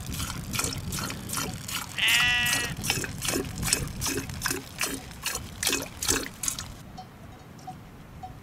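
Milk squirting by hand from a sheep's teats into a pot, in an even rhythm of about three squirts a second that stops shortly before the end. A sheep bleats once about two seconds in.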